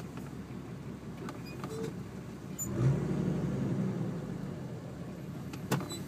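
Nissan Patrol GQ's turbocharged RD28 2.8-litre six-cylinder diesel idling through a 3-inch exhaust with no mufflers, heard from inside the cabin. The low rumble swells louder about three seconds in, and a single sharp click comes near the end.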